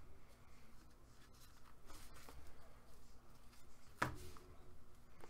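Faint rustling and sliding of hockey cards and foil packs being handled in gloved hands, with one sharp tap about four seconds in.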